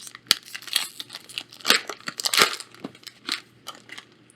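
Foil wrapper of a Magic: The Gathering booster pack being torn open and crinkled, a rapid, irregular run of crackles and rips that dies away near the end.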